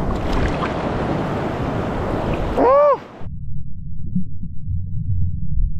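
Shallow surf washing over a rocky shore, with wind on the microphone. About two and a half seconds in comes a brief, loud warbling gurgle as the action camera plunges underwater. After that there is only a muffled, low underwater rumble.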